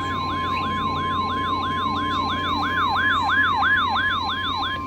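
A steady 1050 Hz weather-radio warning alarm tone signalling a warning, with an electronic siren over it that sweeps rapidly upward about three times a second. The sweeping siren stops near the end while the steady tone carries on.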